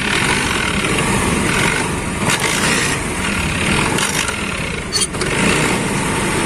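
Honda Activa scooter's single-cylinder four-stroke engine running, with a grating 'kar' noise from the kick-start/clutch side. The noise is still there after the kick shaft was welded, a sign that the welding is not yet enough.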